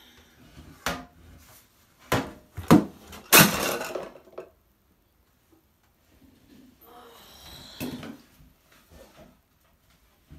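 Several loud knocks and clatters about two to four seconds in, with softer knocks and rustling near eight seconds: hard objects bumped and handled in a small tiled room.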